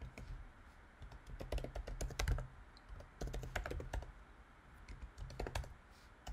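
Typing on a computer keyboard: three short bursts of quick keystrokes with pauses between, as a terminal command is entered.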